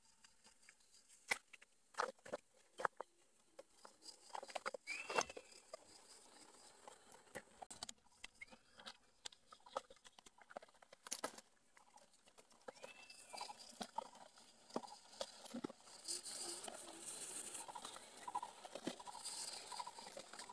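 Machete cutting through wild plant stems close to the ground, with scattered snaps and clicks and the rustle of dry leaf litter being handled. The rustling grows denser near the end.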